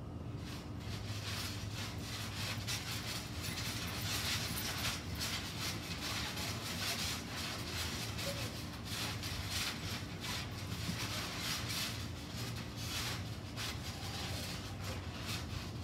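Children bouncing on a trampoline: an irregular run of soft thumps and rustles from the mat, over a steady low rumble.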